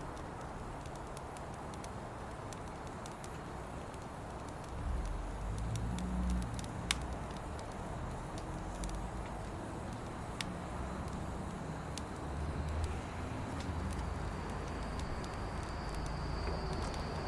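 Firewood burning in a fire pit, with scattered crackles and sharp pops, the sharpest about seven seconds in, over a low rumble that grows louder about five seconds in.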